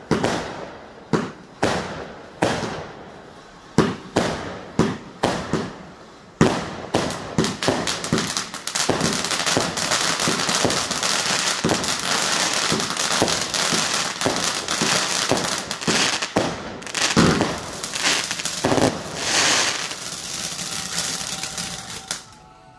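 Fireworks launched from the ground in a rapid barrage. Sharp bangs come about one or two a second at first, then a dense crackling rush of shots and bursts with louder bangs in it, which cuts off suddenly near the end.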